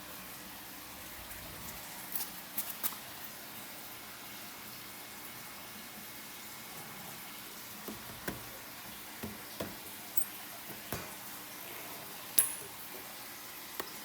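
Scattered light clicks and taps over a steady faint hiss, with one sharper click near the end.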